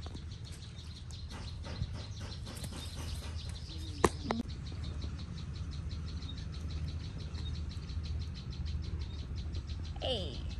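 Insects trilling in rapid, even pulses over a low steady rumble, with a sharp click about four seconds in and a short falling call near the end.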